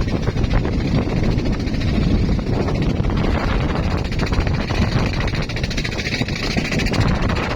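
Motorboat engine running steadily at a constant loud level, with a continuous low rumble.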